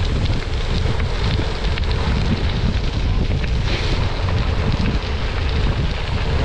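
Wind buffeting the microphone of a camera riding along on a bicycle, a loud steady rumble, with the faint crackle of tyres rolling on a gravel road.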